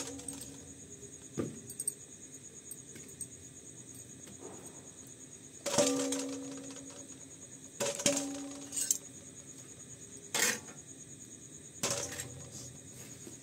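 Roasted litti being lifted out of hot charcoal in an iron pan and dropped into a steel plate: about six sharp knocks and clinks, two of them leaving the plate ringing briefly. A steady high-pitched trill sits underneath.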